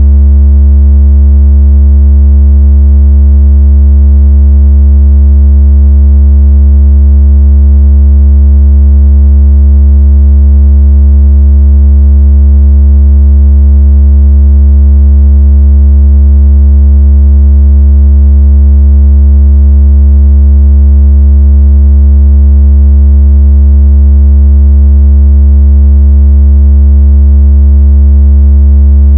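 Loud, very deep electronic tone held perfectly steady with a buzzy edge from faint overtones. It is a water-ejection tone meant to shake water out of a phone speaker, made to sound like strong phone vibration.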